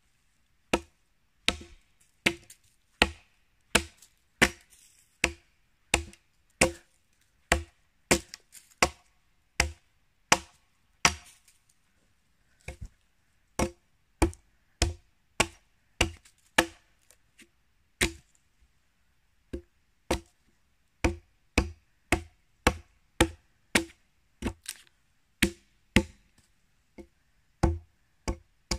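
Axe chopping into a felled log, hewing a flat face along its side: sharp, evenly paced strikes a little more than once a second, with short pauses about 12 and 18 seconds in.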